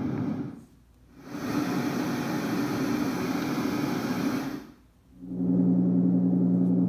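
Sleep sound machine switching between its sound settings: a low rushing sound fades out, a bright steady hiss fades in and plays for a few seconds, then fades out about five seconds in and gives way to a steady low hum.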